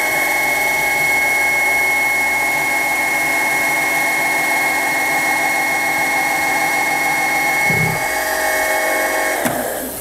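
Milling machine spindle, driven by a 600 W three-phase brushless motor, running with a steady whine while a center drill spots a hole in solid brass. Near the end the whine drops in pitch and the spindle comes to a rapid stop, typical of this brushless motor upgrade.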